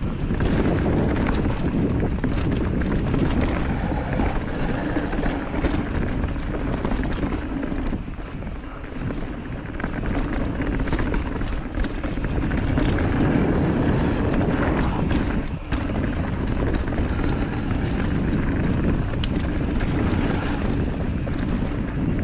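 Mountain bike riding down a rocky trail: steady wind noise over the microphone with tyre rumble and frequent short rattles and clicks from the bike over rocks.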